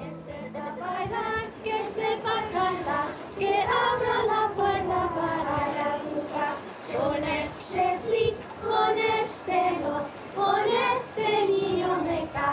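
A group of children singing a song together, unaccompanied.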